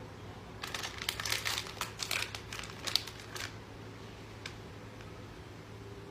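A quick run of crinkling, rustling noises lasting about three seconds, then one more brief rustle a second later.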